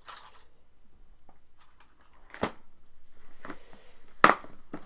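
Small objects being handled on a tabletop: a sharp knock about halfway through, faint rustling after it, and a louder click near the end.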